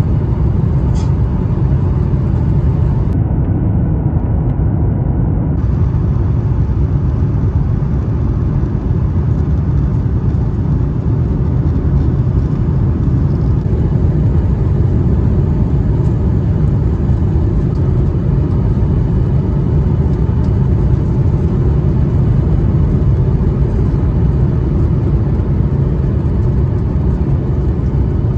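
Cabin noise inside a Boeing 737-800 on final approach, heard from a seat over the wing: a steady low rumble of its CFM56-7B engines and air rushing over the extended flaps.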